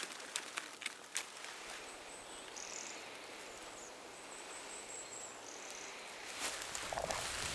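Quiet forest ambience with a thin, high-pitched chirring that comes and goes for a few seconds. Near the end, louder rustling of bilberry shrubs as berries are picked by hand.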